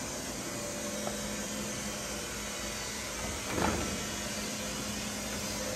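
Steady background hiss with a faint low hum, and a brief rustle or scrape about three and a half seconds in.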